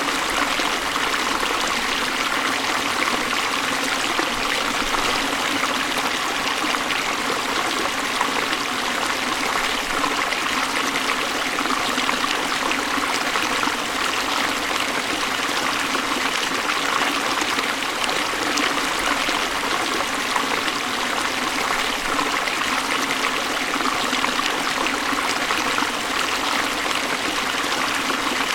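Waterfall: a steady, even rush of falling water, more hiss than rumble, with no change in level.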